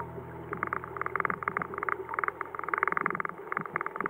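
A mountain stream heard underwater: a steady churning rush with rapid clusters of small clicks and bubbling.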